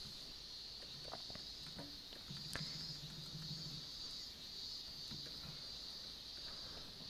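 Quiet room tone: a steady high-pitched hiss with a few faint clicks, and a faint low hum for about a second and a half in the middle.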